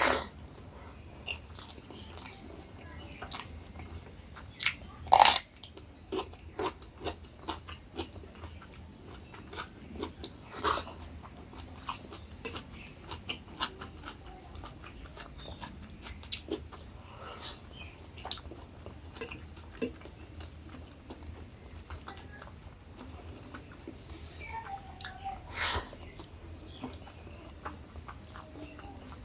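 Close-up eating sounds: chewing and biting through a mouthful of rice and curry, with many small wet clicks and a few louder crunchy bites or clinks about five, ten and twenty-six seconds in.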